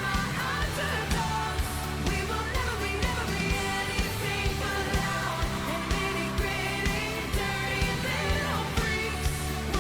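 Background pop song with a sung vocal over a steady drum beat.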